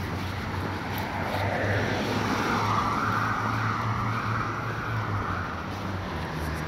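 Steady outdoor rumble of motor-vehicle traffic: a low engine hum with road noise that swells and fades slightly.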